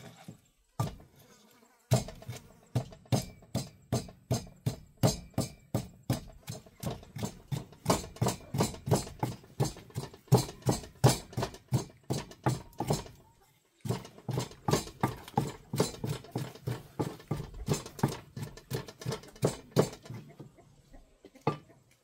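Wooden pestle pounding in a small mortar, steady thuds about two to three a second, pounding jaew (Lao chili dip). The pounding starts about two seconds in, breaks off briefly a little past halfway, and stops a couple of seconds before the end.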